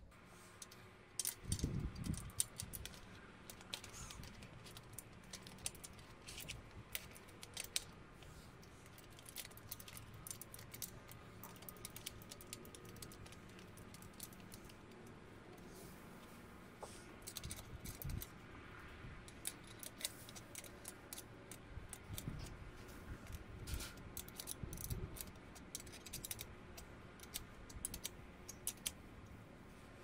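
Light metallic clicks, taps and rattles of a spanner working a bicycle seatpost's saddle clamp as the saddle is fitted and tightened, with a few dull knocks among them.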